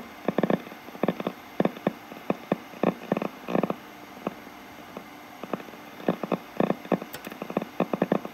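Schaub Amigo III radio's speaker giving out rough, garbled audio in choppy irregular bursts a few times a second, heard while its alignment is being adjusted, with the tuning not yet right.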